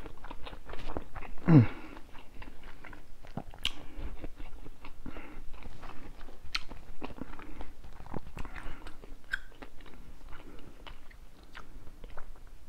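Close-miked chewing of a mouthful of seafood boil: wet smacks and many short clicks of the mouth and teeth, with a falling "mm" of enjoyment about a second and a half in.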